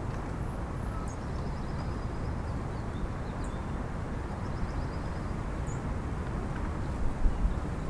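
Wind buffeting the microphone as a steady low rumble outdoors, with small birds chirping now and then and a brief low thump near the end.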